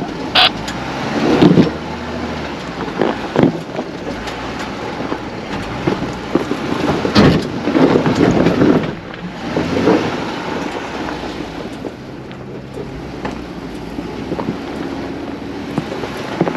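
Jeep engine running at a low crawl over rock, with repeated clunks and scrapes as the tyres and underbody climb the ledges.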